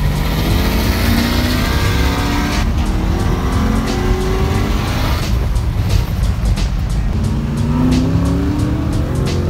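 Holden VZ Commodore V8 accelerating hard, heard from inside the cabin. The revs climb, fall back at a gear change a few seconds in, then climb again. Background music plays over it.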